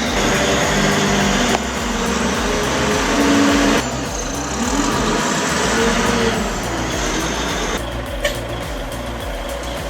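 Diesel engine of a large wheel loader running under working load. The sound changes abruptly three times, about a second and a half in, near four seconds and near eight seconds.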